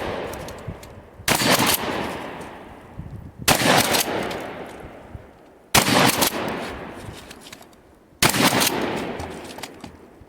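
Shotgun fired four times, one shot about every two and a half seconds, each blast followed by a long echo that fades over about two seconds.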